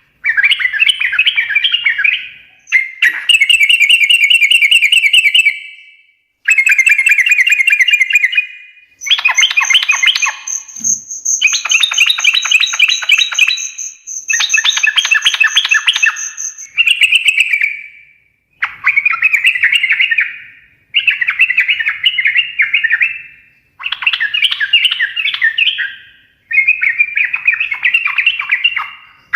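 Yellow-vented bulbul (trucukan) singing its fast chattering 'ngekek' song in repeated phrases of about two seconds, with short pauses between them. A thin, steady high whistle runs over the phrases from about nine to sixteen seconds in.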